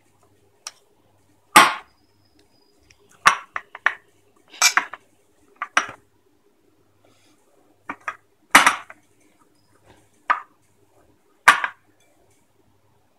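Steel spoon clinking and knocking against a bowl while mashing boiled potatoes: about a dozen sharp, irregular strikes, some in quick pairs.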